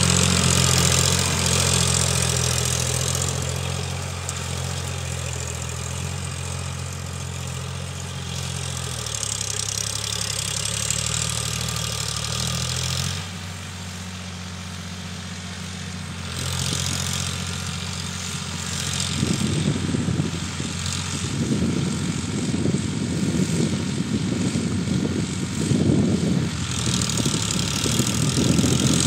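Eicher 551 tractor's three-cylinder water-cooled diesel engine running steadily under load while pulling a cultivator through soil, growing fainter as the tractor moves away. An irregular low rumble rises over it in the second half.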